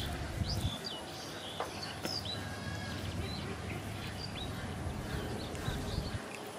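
Small birds chirping: short, quick chirps and whistles, many sliding downward, repeated on and off, with one brief rapid trill about two and a half seconds in. A low rumble runs beneath them.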